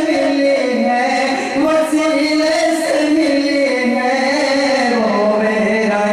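A man singing devotional qawwali into a microphone. He holds long, drawn-out notes that slide up and down in pitch, at a steady loudness.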